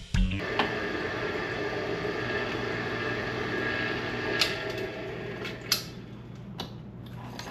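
Electric drill running steadily as it bores through a metal plate, its motor hum dropping away after about four and a half seconds, with a few sharp metallic clicks near the end.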